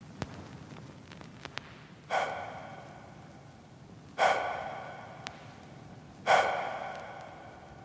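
Song intro: a breathy vocal gasp sample, three times, each starting suddenly and fading, about two seconds apart, with a few faint clicks before the first.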